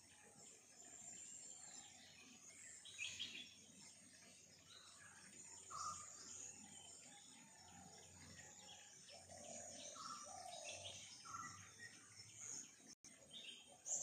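Faint chirps and short calls from several birds, scattered through, over a thin steady high insect-like trill.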